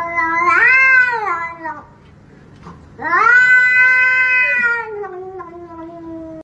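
Grey domestic cat yowling in protest as a hand reaches toward it: two long drawn-out calls. The first rises and falls in pitch, and after a pause of about a second the second is held steady and trails off.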